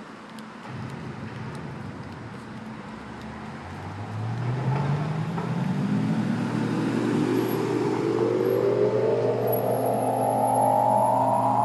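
A rising sweep from the soundtrack of a building projection show. A layered tone climbs steadily in pitch for about eight seconds and grows louder as it goes, over a steady low hum that comes in just after the start.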